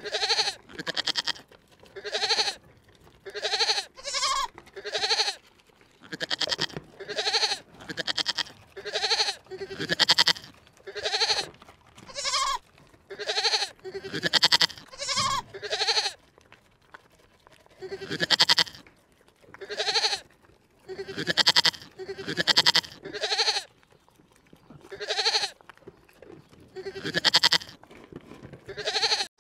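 An animal calling over and over: short pitched calls about one a second, each separated by a brief quiet gap.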